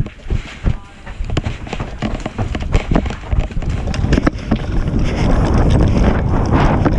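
A person's footsteps moving quickly, a rapid series of short knocks, then wind and movement buffeting the body-worn camera's microphone as a rumble that grows louder about halfway through.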